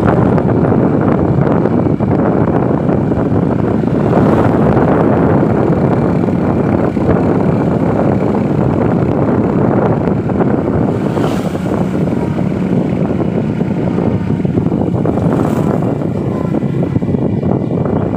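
Steady wind rush on the microphone mixed with the running noise of the road vehicle carrying it, at a constant cruising speed.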